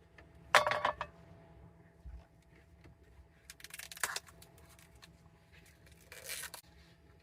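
Three short bouts of scraping and crinkling handling noise, the loudest about half a second in, over a faint steady hum.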